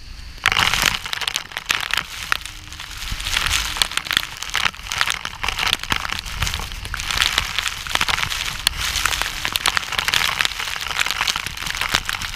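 Heavy rain and wind striking the microphone of a camera held outside a moving train: a dense crackling spatter full of sharp ticks over a low wind rumble, starting suddenly about half a second in.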